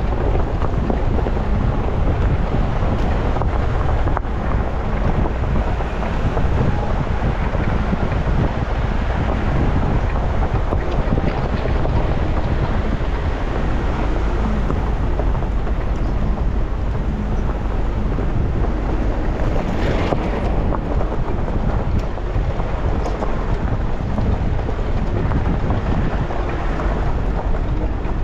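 Wind buffeting the microphone, with a steady low rumble and no clear pitch.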